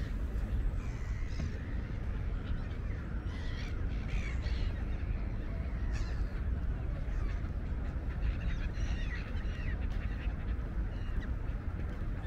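Gulls calling on and off over the river, several short cries scattered through, over a steady low rumble.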